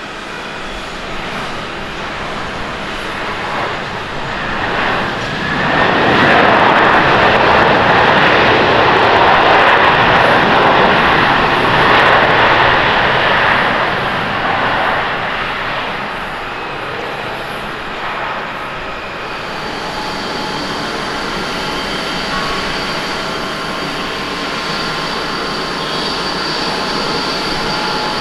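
Boeing 767-300ER landing, with the jet roar of reverse thrust building about five seconds in, holding loud for several seconds and easing off by about sixteen seconds. Near twenty seconds it gives way to a Boeing 787-9 at climb power on a go-around: a steadier, softer jet sound with a thin high whine.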